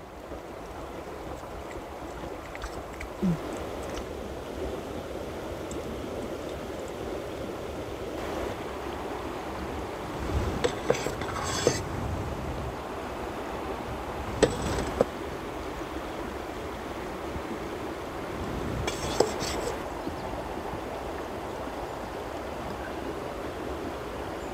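Steady rushing of a river, with a few light clinks of cutlery and dishes around the middle.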